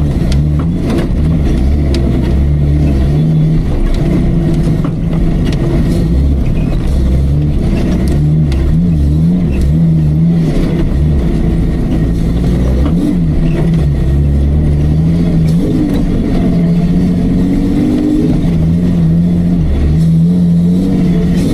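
Off-road Jeep's engine working hard, revved up and eased off over and over, its pitch rising and falling unevenly.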